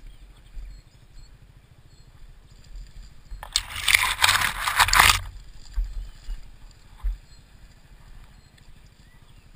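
Spruce branches brushing and scraping across the helmet-mounted camera for nearly two seconds, a few seconds in, loud and hissy. Under it runs the low, pulsing sound of an enduro dirt bike's engine at low revs.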